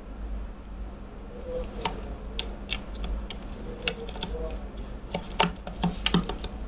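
A run of irregular sharp clicks, about a dozen, coming more often near the end, with a few faint soft chirps between them.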